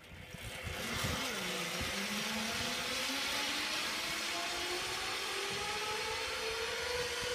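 Zip-line trolley pulleys running down a steel cable: a steady hiss with a whine that rises slowly in pitch as the rider picks up speed.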